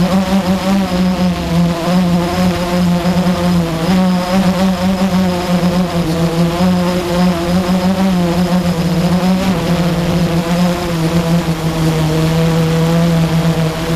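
Blade 350 QX quadcopter's electric motors and propellers buzzing loudly while it hovers, heard up close from the onboard camera. The pitch wavers up and down as the motors adjust, and it drops a little about two-thirds of the way through.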